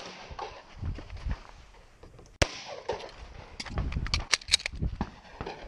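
Pistol shots from the shooter's handgun: one at the very start and one loud, sharp shot about two and a half seconds in. Between and after them come thuds and rustling as the shooter moves, and a quick run of fainter sharp cracks near the end.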